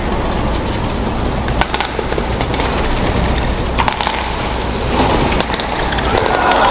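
Sharp racket strikes on a shuttlecock during a badminton rally, a few spaced clicks over the steady noise of an arena crowd. The crowd noise swells near the end as the rally reaches its finish.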